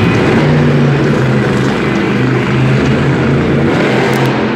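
Monster truck's supercharged V8 running hard as the truck drives across the arena floor, a loud, steady engine drone, heard from the stands of an indoor arena.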